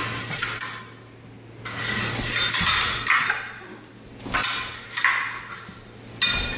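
Épée blades clashing, metal on metal, in several quick flurries of clinks as the two fencers attack and parry.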